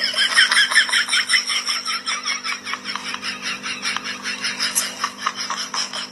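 Rapid, rhythmic laughter at about six pulses a second, over a steady low hum.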